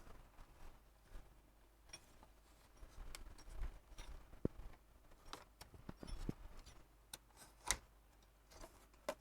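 Faint, scattered clicks and light knocks of a screwdriver and small metal parts as screws are taken out of a subwoofer's amplifier board.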